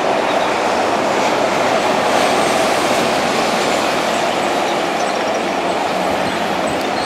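Train rolling past close by: a steady, loud rush of wheels on rail, with faint high metallic squeaks about five seconds in.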